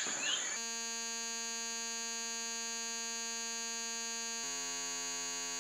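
Steady electronic buzzing tone made of many held pitches at once, starting about half a second in and shifting to a lower, fuller chord about four seconds in: a synthesized outro sound.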